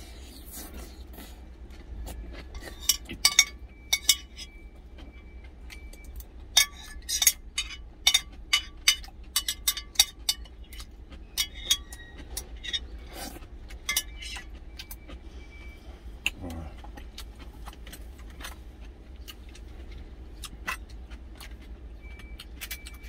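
Metal spoon clinking and scraping against a glass food container while the last of the fried rice is scooped out: many sharp clinks, some with a short ringing tone, bunched in the first two-thirds, over a low steady hum.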